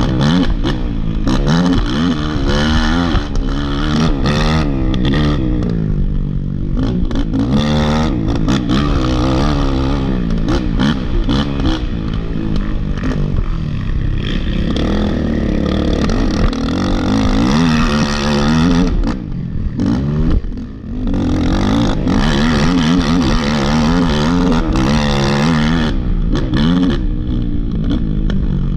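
Dirt bike engine revving up and down as it is ridden hard over rough off-road ground, with clatter and knocks from the bike over the terrain. The throttle drops off briefly about two-thirds of the way through, then picks up again.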